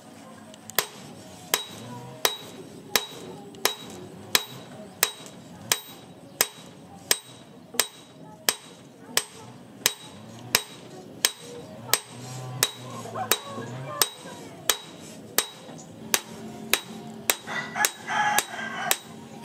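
Hand hammer forging a red-hot steel blade cut from a chainsaw bar on a stake anvil: steady blows at about three every two seconds, each with a short metallic ring.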